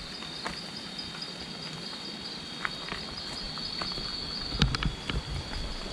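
Night insects such as crickets keep up a steady, high two-pitched chirring, with scattered taps and knocks. The loudest knocks are about four and a half to five seconds in.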